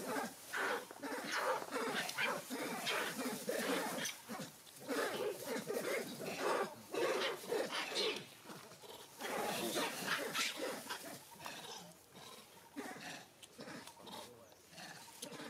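Macaques calling in a rapid run of short squeals and screeches that thins out and fades over the last few seconds.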